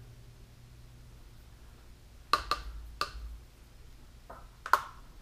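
A few sharp clicks and light taps: paintbrushes and small paint bottles handled on a plastic palette tray. Three clicks come in quick succession a little past two seconds in, and a louder one near the end.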